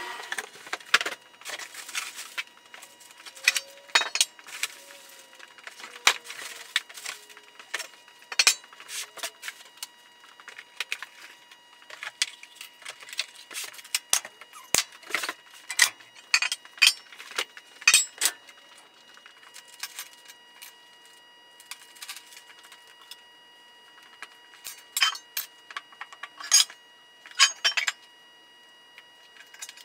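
Irregular metallic clinks and clanks of steel plow wing extension parts, hardware and hand tools being handled and set down on a concrete floor. Under them runs a faint steady hum.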